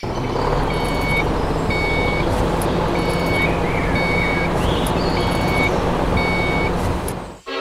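A vehicle's engine running steadily while its reversing alarm beeps about once a second. It cuts off suddenly near the end.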